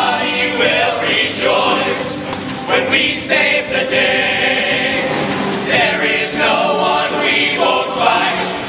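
A group of voices singing together in a stage musical number.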